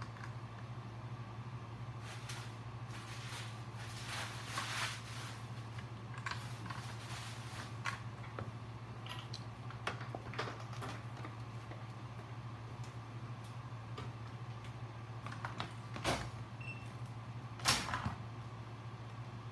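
Scattered light clicks, taps and rustles of wires, tools and a power supply terminal block being handled on a workbench, over a steady low hum. Two sharper knocks come near the end.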